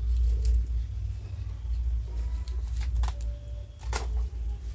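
A kitchen knife cutting through a plucked hen's leg joints, giving a few sharp clicks and cracks, over a low steady rumble.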